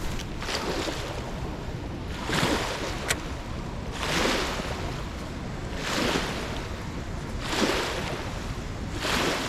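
River water and wind rushing on the microphone, swelling in even whooshes about every two seconds, with a single faint click about three seconds in.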